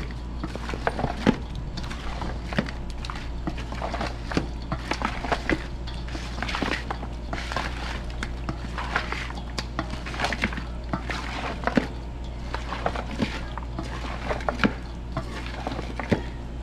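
Wooden spoon stirring seasoned raw chicken pieces in a stainless steel bowl: irregular knocks and scrapes of wood on metal, several a second, over a steady low hum.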